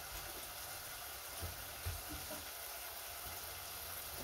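Food frying in a pan on a gas stove: a faint, steady sizzle, with a few soft low knocks about one and a half and two seconds in.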